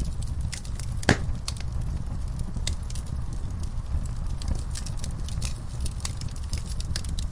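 Wood fire burning in a fireplace: irregular crackles and pops over a low steady rumble, with one loud pop about a second in.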